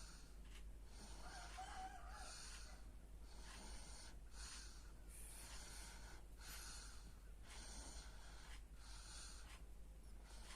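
Sleeping baby snoring softly, with a faint noisy breath roughly once a second.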